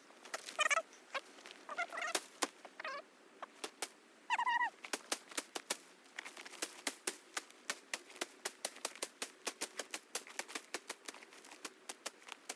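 Trail clearing through brush: sharp dry clicks and snaps of branches and twigs being cut and broken, coming in a fast run of about four to five a second through the second half. A few short bird calls sound in the first few seconds.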